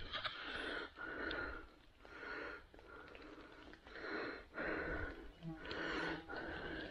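A man breathing hard close to the microphone, a steady run of breaths in and out, roughly one every second.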